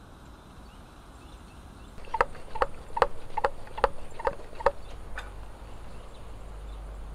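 An animal call repeated eight times in an even rhythm, about two and a half calls a second, starting about two seconds in, over a steady background hiss.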